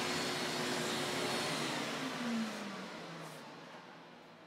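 Random orbital sander with its dust-extraction hose winding down after being switched off: a fading whir whose pitch falls as the pad spins to a stop.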